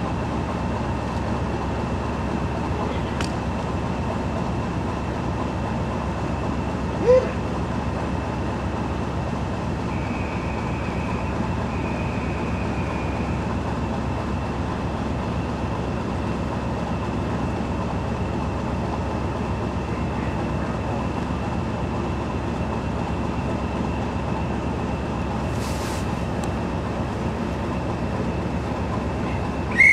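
BR Class 37 diesel locomotive with its English Electric V12 engine idling steadily, a thin high whistle held over the low, even engine note. A short sharp sound comes about seven seconds in, and a louder whistle-like tone right at the very end.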